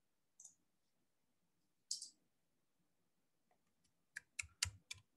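Quiet room with a couple of faint single clicks, then a quick run of about five computer keyboard keystrokes near the end as a folder name is typed.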